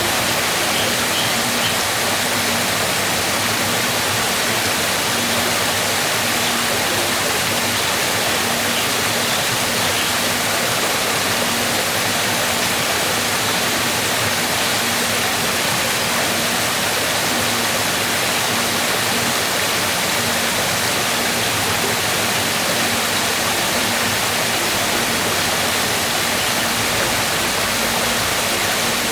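Waterfall, a steady rush of falling water with no break.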